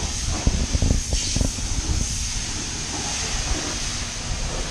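High-pressure car wash wand spraying water onto a car, a steady hiss. Low thumps sound in the first second and a half.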